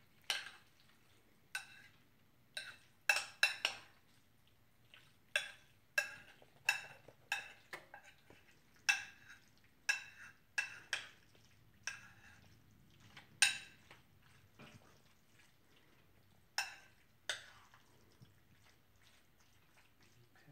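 A spoon clinking and scraping against a ceramic casserole dish as a noodle chicken casserole is stirred: a long run of irregular, short ringing clinks, a few of them sharper, around three to four seconds in and again about thirteen seconds in.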